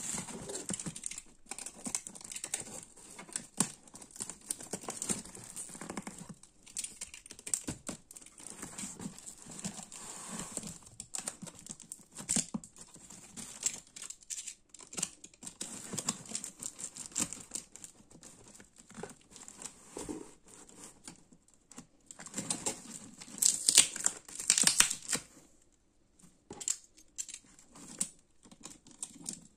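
Corrugated cardboard box being torn open and handled by hand: rustling, crinkling and ripping of cardboard and packing tape, with a louder stretch of tearing a little past three-quarters of the way through.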